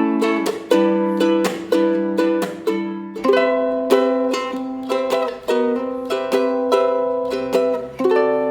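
Tenor ukulele with an all-koa body, fan-braced, strummed in a rhythmic chord progression, each strum ringing and decaying before the next, with a chord change about three seconds in.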